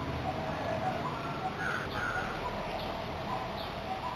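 Several birds calling, many short chirps and quick curving notes scattered throughout, over a steady background hiss.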